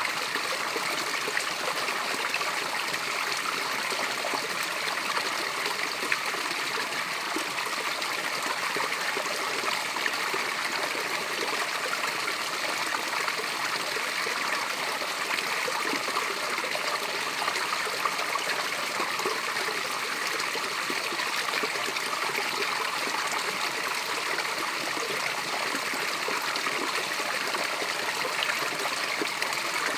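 Small natural waterfall: water cascading and splashing without a break. The sound is a steady, even splash with fine trickling and little deep rumble.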